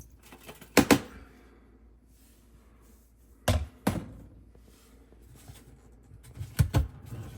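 Sharp clicks and knocks of hard plastic dishwasher parts being handled, as the filter is twisted out of the sump: a pair about a second in, another at three and a half to four seconds, and a third near the end.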